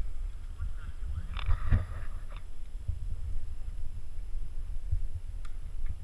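Low rumble of wind and road noise on the microphone of a camera riding along on a moving mountain bike over a dirt road, with a short burst of higher-pitched sound about a second and a half in and faint clicks near the end.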